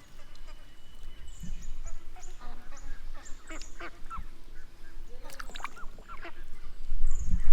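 Domestic ducks calling in short, scattered quacks, with short high chirps over them and a low rumble near the end.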